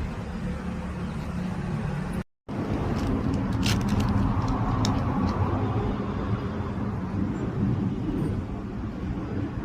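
A motor vehicle engine running steadily, with a few sharp metallic clicks between about three and five seconds in. The sound cuts out completely for a moment about two seconds in.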